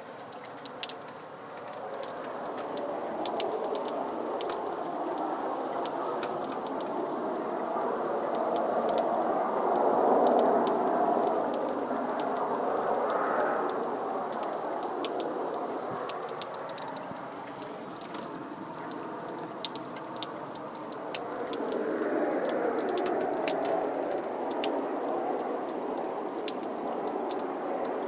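A rushing, wind-like roar from the sky, like strong wind or jets flying over, though no wind blows at ground level. It swells about ten seconds in, eases, and swells again a little past twenty seconds. Faint crackling ticks run over it.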